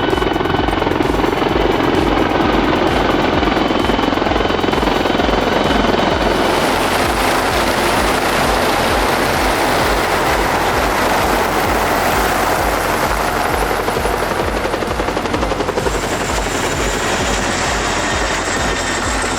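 Military helicopter flying past, its rotor thudding fast and regularly under loud turbine and rotor wash noise that grows brighter about six seconds in.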